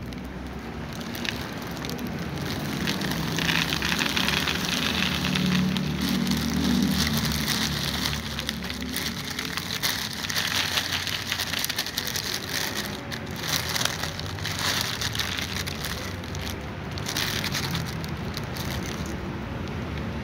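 Plastic bag of dry cat food crinkling and rustling close to the microphone, a dense irregular crackle, with a low hum underneath for a few seconds near the start.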